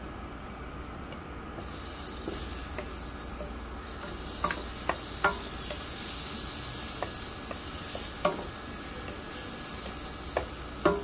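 Butter and oil sizzling in a hot nonstick frying pan, starting about a second and a half in, while a wooden spatula knocks and scrapes against the pan as onion pieces are pushed around. The sharp knocks come irregularly, the loudest right at the end.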